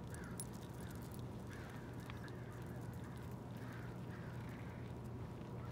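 Crows cawing faintly, a loose series of short caws, over a steady low background hum.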